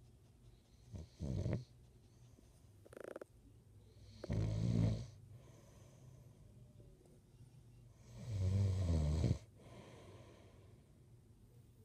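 A man snoring in his sleep: three loud snores about four seconds apart, the last one the longest, with a fainter, higher-pitched breath sound about three seconds in.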